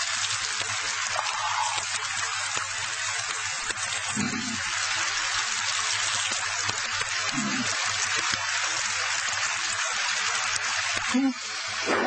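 Steady rushing hiss of water, like heavy rain, with three brief low tones about four, seven and a half and eleven seconds in.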